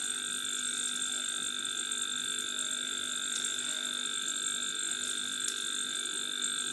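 Steady machine whine made of a few fixed high tones, with two faint ticks about three and a half and five and a half seconds in.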